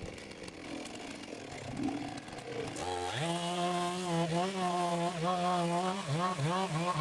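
Two-stroke chainsaw revving up to full throttle about three seconds in and running at high speed, with the revs dropping and picking up again several times near the end.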